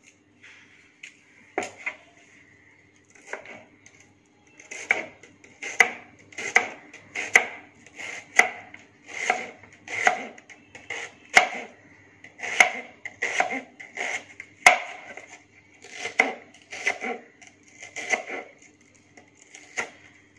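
Kitchen knife slicing a red onion into thin vertical strips on a plastic chopping board. A few scattered cuts, then from about five seconds in a steady run of crisp cuts at a bit over one a second, some ending in a sharp tap of the blade on the board.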